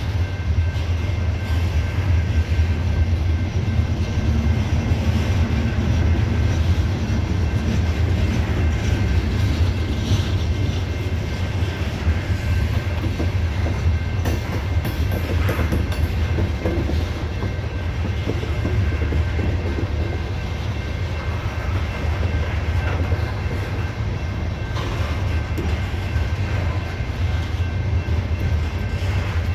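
Freight train of CSX coal cars rolling past: a steady deep rumble of steel wheels on the rails.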